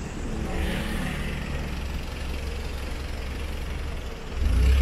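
Outdoor road traffic: a steady low vehicle rumble with a faint passing hiss about half a second in. The rumble grows suddenly louder near the end.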